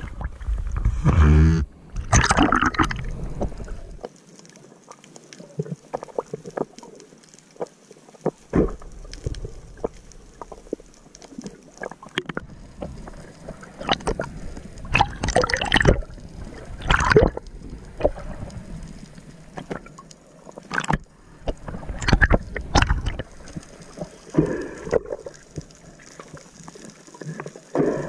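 Water splashing and sloshing in irregular bursts, with a short, loud pitched sound about a second in.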